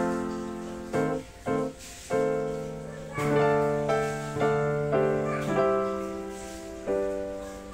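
Background piano music: a slow tune of single notes and chords, each struck and left to ring.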